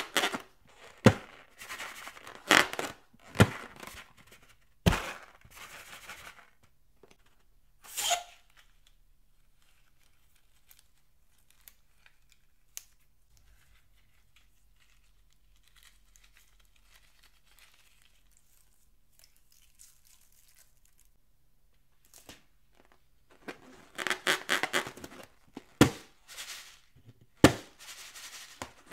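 Hands squeezing and rubbing filled rubber balloons, giving rubbery crinkles, squeaks and a few sharp snaps. There are two busy spells separated by a long quiet stretch in the middle.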